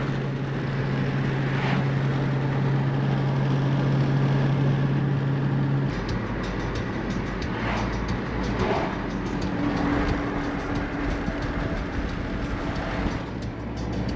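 Ford Focus ST cruising, heard from inside the cabin: steady tyre and road noise under a constant engine hum. The hum's pitch changes partway through, first lower, then higher.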